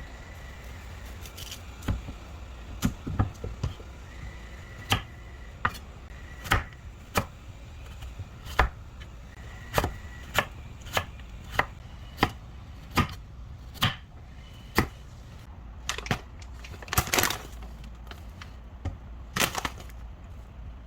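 Knife chopping on a cutting board: a slow, uneven series of sharp knocks, roughly one or two a second, over a steady low hum.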